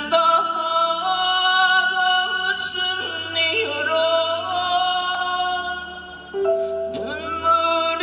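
Man singing a Korean trot song into a handheld microphone over musical accompaniment, holding long notes with vibrato. There is a short break for breath just past six seconds before the next phrase.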